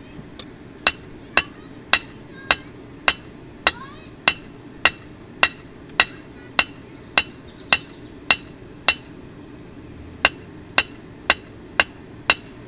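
Hand hammer striking the red-hot tip of an old cold chisel on a steel anvil, forging it into a square point for a center punch. About twenty ringing blows at roughly two a second, with a short pause about two-thirds of the way through.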